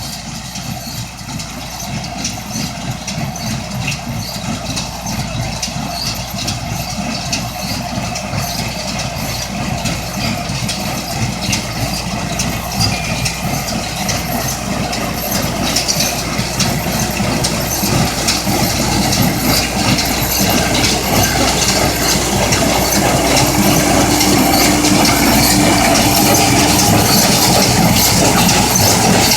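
Tractor engine and JF Prisma 5000 baler running as they work maize stover, a steady engine rumble with a dense mechanical clatter, growing steadily louder as the machine comes closer.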